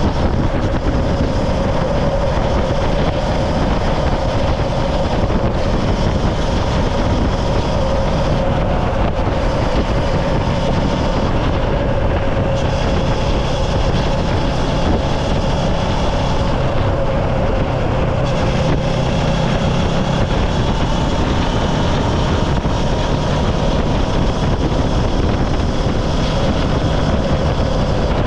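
Steady, loud mechanical hum over a rushing noise, unbroken throughout, like a running motor or moving vehicle.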